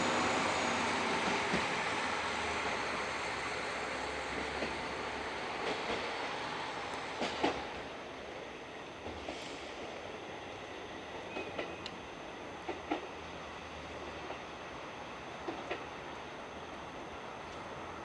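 KiHa 40 diesel railcar pulling away and receding: its engine noise fades over the first several seconds. Scattered sharp clacks of wheels over rail joints follow, growing fainter.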